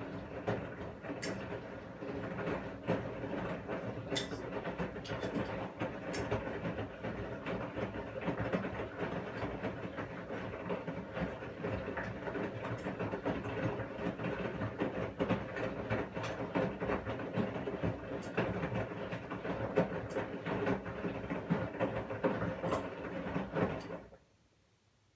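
Washing machine drum turning in a wash cycle: a steady motor hum with the rattle and clicks of the tumbling load. It starts suddenly and cuts off near the end, as the drum stops between turns.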